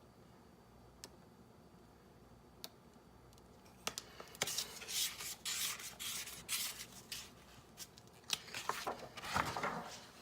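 Handling noise: a few faint clicks, then from about four seconds in, irregular scratchy rubbing and scraping with sharp clicks, as objects are moved and rubbed against a surface close to the microphone.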